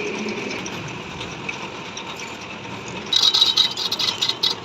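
Metal lathe running with a steady whine; about three seconds in, a louder, rapid, uneven scraping clatter starts as the cutting tool bites into the welded workpiece.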